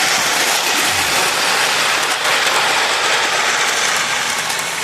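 1960 Lionel toy steam locomotive running on the layout: a steady whirring and rattling from its electric motor, gears and wheels on the track as it hauls a heavy string of cars.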